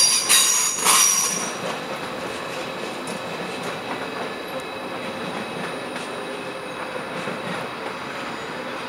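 Trains rolling through the station tracks: a loud, high-pitched squeal of steel wheels on rail for the first second and a half, then steady running noise of the moving trains.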